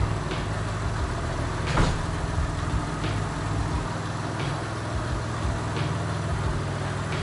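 Mitsubishi Galant VR-4's engine idling steadily, with one knock about two seconds in.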